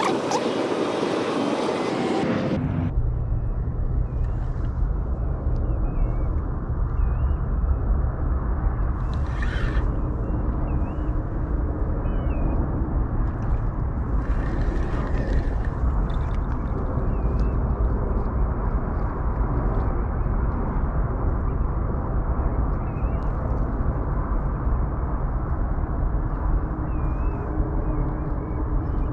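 A steady low outdoor rumble, with faint high wavering chirps now and then. A loud, even rush of noise fills the first couple of seconds and cuts off abruptly.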